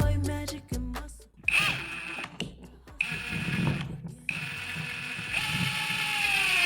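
CAT DX71 cordless drill/driver's motor whining as it drives a screw into wood, in several short runs with brief pauses. In the last run the pitch slowly falls as the motor comes under load.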